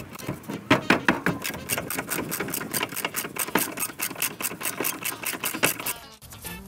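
Ratchet wrench clicking rapidly and unevenly as an 18 mm rear brake carrier bolt is unscrewed the rest of the way after being broken free. The clicking stops shortly before the end.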